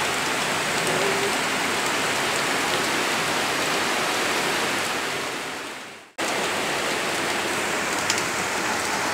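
Heavy monsoon rain pouring down, a steady dense hiss. It fades out about six seconds in and comes back suddenly after a brief gap.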